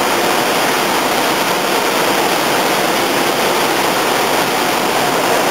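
A loud, steady rushing noise with no beat or clear tone, like machinery or air handling echoing in a large hall.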